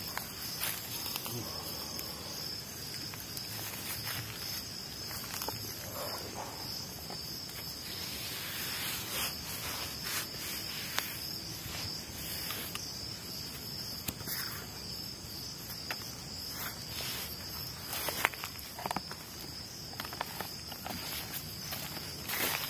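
Night chorus of crickets and other insects, a steady high-pitched chirring, with a few faint clicks and knocks scattered through it.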